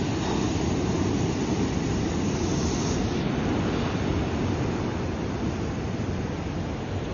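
Ocean surf washing over a rocky shore: a steady, rushing wash of breaking waves.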